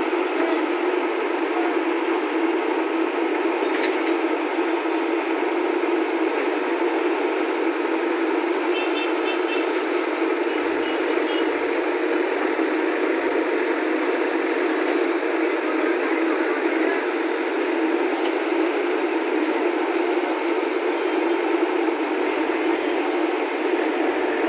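Diesel engine of a Tata 315V backhoe loader running steadily.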